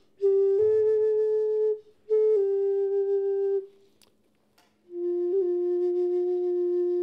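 Flute carved from ice being blown in long held notes: a note that steps up in pitch, a short break, a note that steps down, then after about a second's pause one long steady note.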